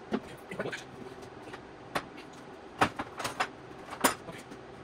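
Scattered sharp metal knocks and clunks as a Triumph TR4's cast-iron cylinder head is worked free of its studs, lifted off the block and set down on a steel workbench.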